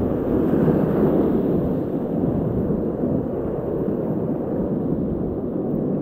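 Whitewater rapids rushing and churning close around a kayak running through them: a dense, low rumble of fast river water, a little louder in the first two seconds.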